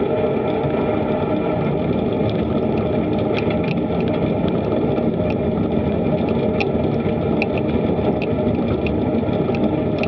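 Bicycle riding along a woodland path at about 20 km/h: steady rumble of tyre noise and wind on the microphone, with scattered sharp ticks.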